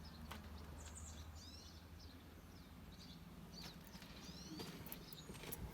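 Small birds chirping faintly: scattered clusters of short, high, sweeping chirps every second or so, over a low steady hum.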